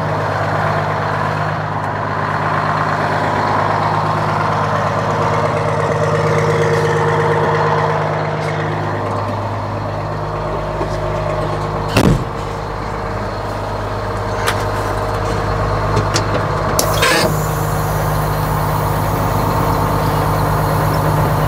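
A Detroit Diesel two-stroke truck engine idling steadily. A single sharp burst of noise cuts across it about halfway through, and smaller knocks follow later.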